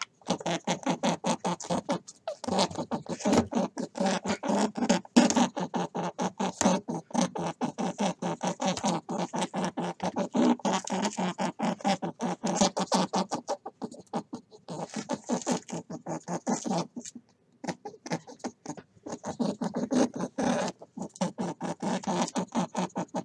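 Rabbit making a fast run of short clicking pulses, several a second, with a few brief breaks.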